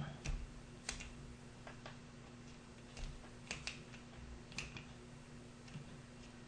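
Faint, irregular metallic clicks and ticks of a bypass knife pick working inside an old Taylor padlock's mechanism, over a steady low hum.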